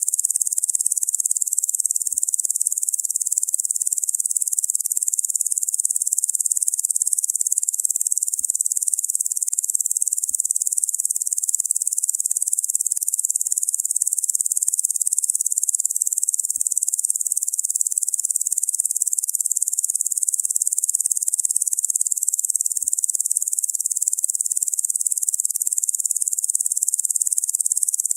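Locusts buzzing in one dense, unbroken high-pitched drone.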